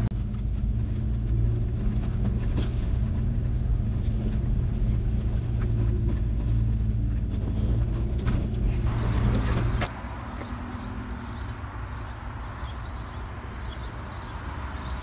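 Truck engine running steadily with a low hum, heard from the cab; it cuts off abruptly about ten seconds in, leaving a quieter outdoor background with faint high chirps.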